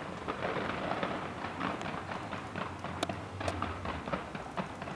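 Distant fireworks display crackling and popping in rapid, irregular bursts, with two sharper cracks about halfway through.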